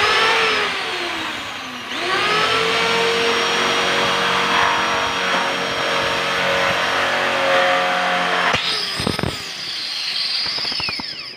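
Handheld electric drill boring into a steel frame member, its motor whining under load. The motor slows in the first two seconds, spins back up and runs steadily, then gives a rattle of sharp clicks about three-quarters of the way in and runs on at a higher pitch until it stops sharply at the end.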